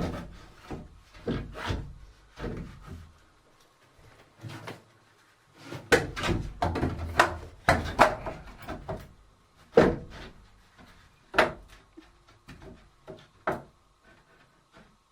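An irregular series of wooden knocks and clunks, with a run of sharp strikes about two a second between about six and eight and a half seconds in, then a few scattered knocks.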